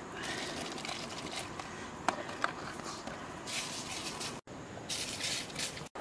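Leaves and herbs rustling as they are handled and packed into a cooking pot, in several short bursts, with two brief chirps about two seconds in.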